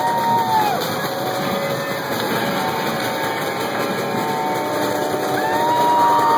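Loud, steady wash of amplified noise from a live band's instruments, with a few held tones over it that slide up and down.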